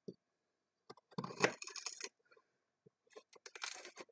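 A kitchen blade scraping along a raw carrot in repeated strokes. A cluster of strokes comes about a second in, and quicker, shorter strokes follow near the end.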